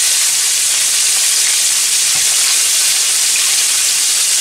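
Flour-dusted grey snapper steaks shallow-frying in hot oil in a pan: a loud, steady sizzle.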